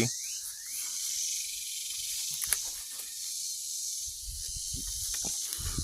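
Steady high-pitched hiss of insects in the woods, with a few faint clicks and a couple of low thumps near the end.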